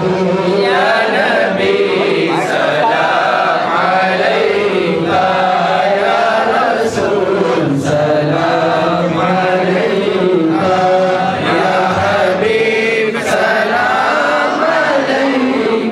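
Voices chanting an Islamic devotional recitation together, continuous and melodic.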